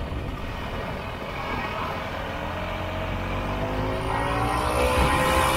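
Vintage Ski-Doo snowmobile's two-stroke engine running while the sled travels. Its pitch rises and it gets louder as the sled speeds up over the last couple of seconds.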